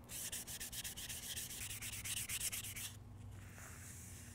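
Hand wet sanding a 3D-printed ABS plastic part with 600-grit sandpaper: quick, even back-and-forth rubbing strokes that ease off to a fainter rub about three seconds in.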